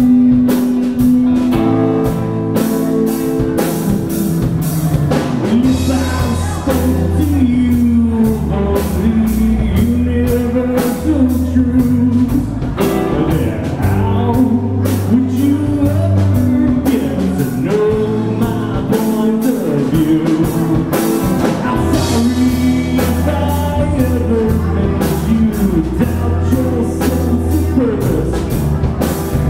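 Live rock band playing: electric guitar, bass guitar and drum kit, loud and steady throughout.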